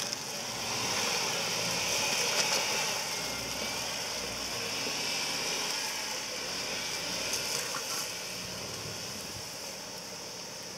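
A vehicle engine running, growing louder about a second in and then slowly fading, under a steady high hiss.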